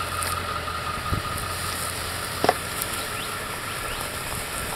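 Ford F250 engine idling steadily, with two short knocks about one and two and a half seconds in.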